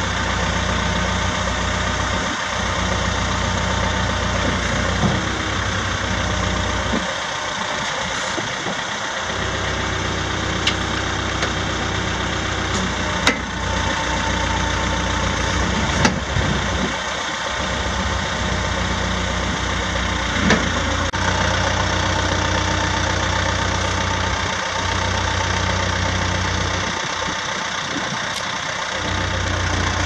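Diesel engine of a 2008 Terex TX970B backhoe loader running steadily while its hydraulics work the boom, stabilizers and loader, with a few short sharp knocks from the moving parts.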